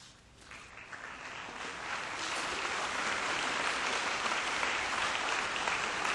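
Audience applause greeting the end of a concert band's performance. It builds over the first two seconds and then holds steady.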